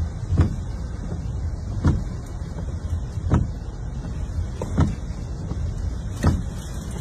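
Car windshield wipers sweeping the glass, a short stroke about every second and a half, five times, over a steady low rumble inside the car.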